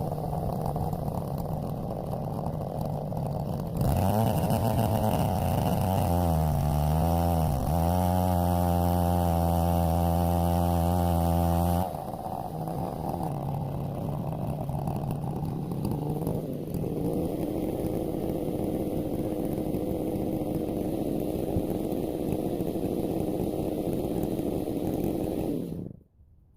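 Two-stroke chainsaw, a Stihl 070, running at a lower speed, then opened up to full throttle about four seconds in. The pitch dips and recovers once, holds high for several seconds, and drops back about twelve seconds in. It runs on at the lower speed and cuts off just before the end.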